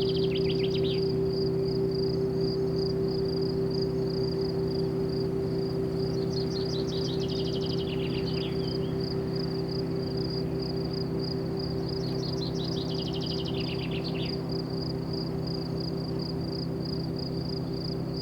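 Summer outdoor ambience: an insect, likely a cricket, chirps in steady rapid pulses while a bird gives a descending trill three times, about six seconds apart. Underneath runs a steady low hum, slowly fading.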